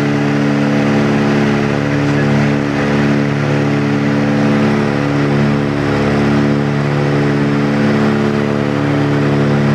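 Cabin drone of a Britten-Norman BN-2 Islander's twin piston engines and propellers in steady cruise. It is a loud, even hum with a slow pulsing about once a second, heard from inside the cabin.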